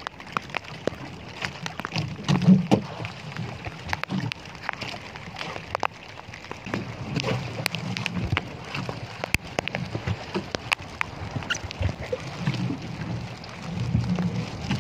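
Rain ticking in scattered sharp drops close by, over water sloshing against a small outrigger boat. Irregular swells of low rumble, from wind or waves against the hull, come and go.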